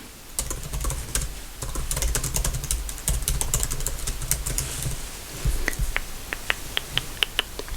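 Typing on a computer keyboard. Quick runs of key clicks give way, in the second half, to slower, separate taps.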